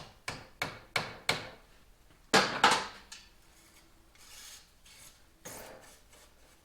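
Short scraping and rubbing strokes of metal motorcycle fork parts being handled. There are about five quick strokes in the first second and a half, then a louder pair around two and a half seconds in, and fainter ones after.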